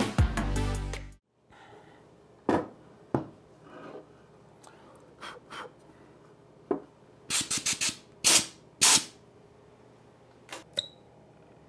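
Background music cuts off about a second in. Then come scattered short scrapes and clicks of hand work on a workbench: a quick cluster just past the middle, then two louder, longer rubbing strokes.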